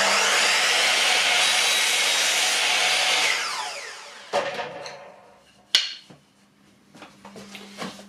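Bosch mitre saw running and cutting a wooden strip, then switched off, its blade spinning down with a falling whine over about a second. A couple of sharp wooden knocks follow as the cut pieces are handled.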